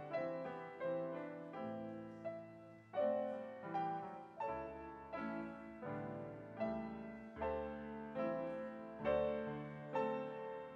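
Piano music: a slow, gentle piece of chords and single notes. Each note is struck and then fades, about one a second.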